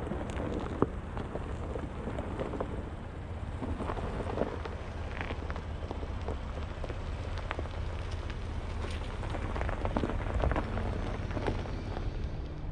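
Pickup truck crawling up a steep loose hill: a low steady engine rumble under scattered crackling and popping of tyres over gravel and rock.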